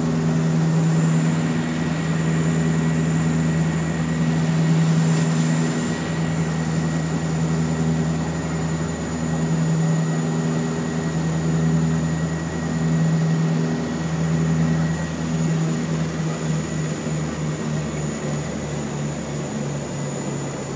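ATR twin-turboprop engines and propellers droning in the cockpit during the climb. The low hum swells and fades every couple of seconds, and the pulsing grows quicker near the end. A faint steady high whine runs under it.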